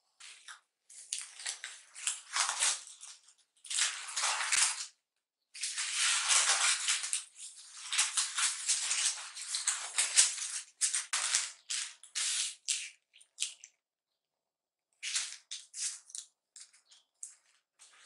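A large sheet of sandwich-wrapping paper rustling and crinkling as it is handled and spread out. It comes in bursts of crackle with short pauses, and a longer pause about three-quarters of the way through.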